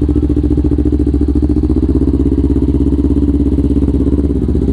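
Kawasaki Ninja 250 FI parallel-twin engine breathing through a Villan New ZX1 aftermarket exhaust, running steadily at low revs with an even, deep note that dips briefly near the end.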